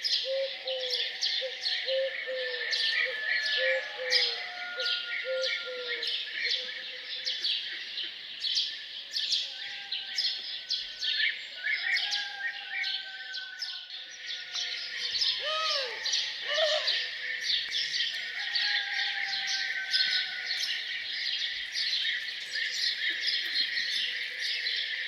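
Dawn chorus of many small songbirds chirping and singing densely together. For the first several seconds a lower note repeats about twice a second under the chorus.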